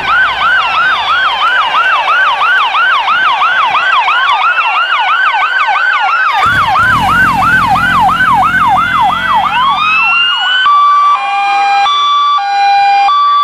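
Sirens of a passing police car and emergency truck: a fast yelp, about three to four sweeps a second, overlapped by a slower rising-and-falling wail, with a low vehicle rumble through the middle. Near the end the siren switches to a two-tone hi-lo alternating between two steady pitches.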